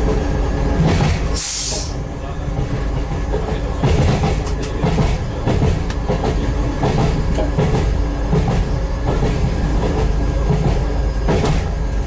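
Train running on the rails: a steady engine rumble with repeated clicks of the wheels over the track, and a brief hiss about a second in.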